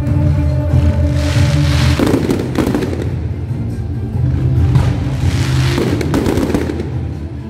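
Aerial fireworks bursting and crackling in waves, about a second in and again near six seconds, over music with sustained low notes that change twice.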